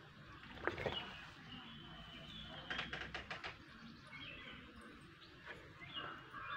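Small birds chirping in short calls, with a sharp click about a second in and a quick run of about six clicks near the middle.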